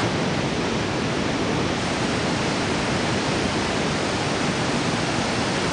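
Mesa Falls, a large waterfall on the Henry's Fork of the Snake River, and the whitewater above it: a steady, even rushing of falling water with no break.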